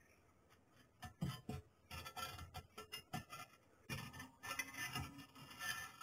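Terracotta tiles clinking and scraping against each other and the brickwork as they are handled, in irregular bursts of sharp clicks and knocks starting about a second in.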